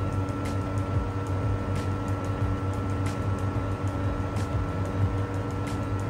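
Espresso machine pump running steadily during a shot extraction, a low hum with a few steady tones over it and occasional faint ticks.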